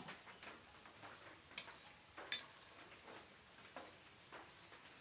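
Very quiet scattered ticks, with two sharp metallic clicks about one and a half and two seconds in: a metal slotted spoon knocking against an iron karahi of frying potatoes.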